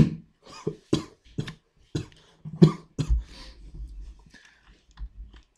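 A man coughing several times in short bursts, the loudest right at the start and quieter ones following about two a second.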